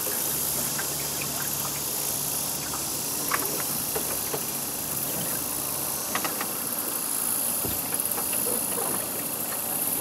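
A boat's motor running steadily: a low hum under a steady hiss of water and wind, with a few small clicks here and there.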